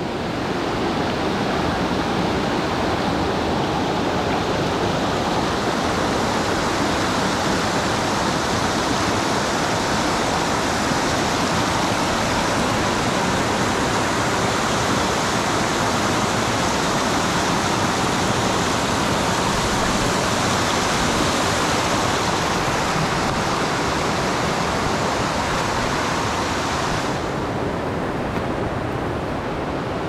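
Shallow mountain stream rushing and splashing over rocks, a steady loud wash of water. A few seconds before the end the higher hiss drops away and the water sounds duller.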